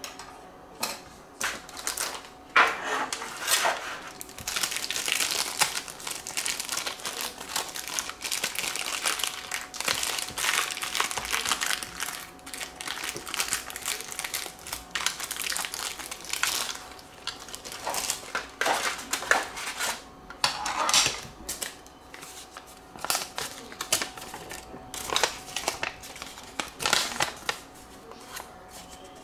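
A clear plastic packaging bag crinkling in irregular bursts as hands work a model-airplane part out of it. Near the end a paper instruction sheet rustles as it is unfolded.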